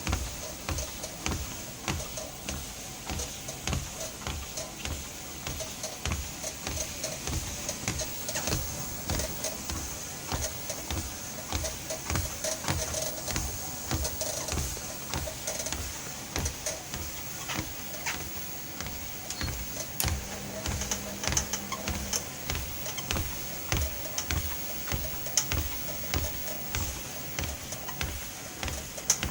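Treadmill squeaking and creaking in a steady rhythm with each footfall or belt cycle, with regular low thumps under the squeak.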